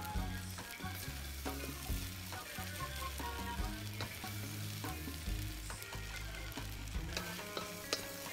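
Noodles sizzling in a hot wok as they are stir-fried, the wooden spatula scraping and knocking against the wok at irregular intervals, about once a second.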